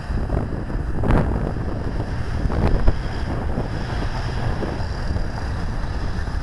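Wind buffeting the microphone: a steady low rumble with two stronger gusts, about one second in and around three seconds in. Underneath, a 2006 Lincoln Town Car drives off across a concrete parking deck.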